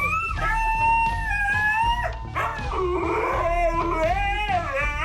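Husky howling in long, wavering, drawn-out calls that bend up and down in pitch, over background music with a steady beat.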